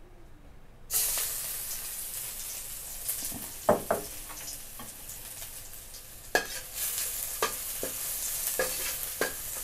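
Chopped garlic going into hot oil in a pan: a loud sizzle starts suddenly about a second in and keeps going, with the spatula knocking and scraping against the pan several times as the garlic is stirred and fried.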